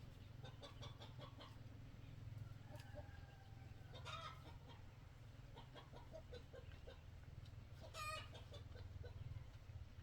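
Chickens clucking faintly, with a louder call about four seconds in and another about eight seconds in, over a low steady hum.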